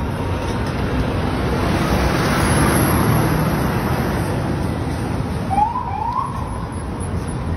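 City street traffic, with a concrete mixer truck driving past close by, its noise swelling and fading. About five and a half seconds in, two short rising siren whoops sound, half a second apart.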